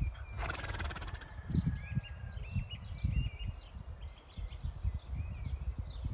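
A horse gives one short call, under a second long, about half a second in.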